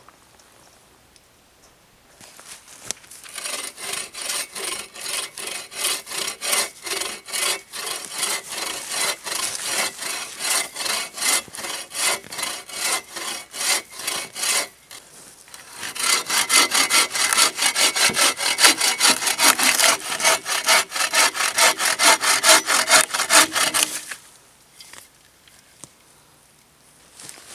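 Bow saw cutting through a dead log, with steady back-and-forth strokes at about two a second. A short pause comes about halfway, then the strokes resume louder and a little faster until they stop a few seconds before the end, with the log cut through.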